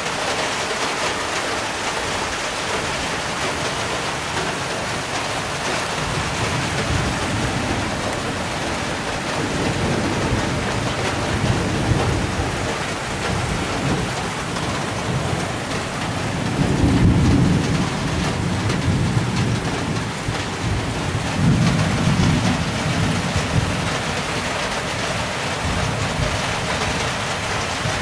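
Heavy rain falling steadily, with long rolls of low thunder building through it. The thunder is loudest a little past the middle and swells again a few seconds later.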